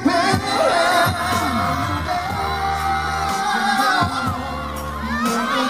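Live pop concert: a man singing into a handheld microphone over a loud backing track with bass and drum hits, recorded from among the audience.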